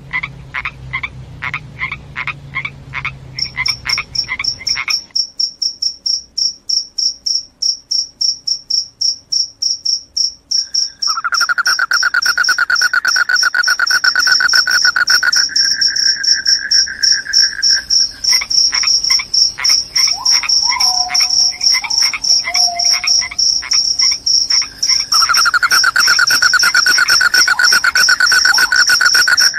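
Crickets chirping loudly, several at once at different pitches. A high, rapidly pulsed chirp carries on throughout, and a lower continuous trill comes in and out. Short pulsed calls from another animal sound at the start.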